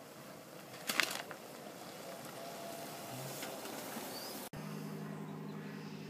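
Land Rover Range Rover (L322) driving slowly along a narrow gravel lane towards the microphone, its engine and tyres on gravel growing louder, with a brief loud crackle about a second in. About four and a half seconds in the sound cuts off and is replaced by a steady low engine hum.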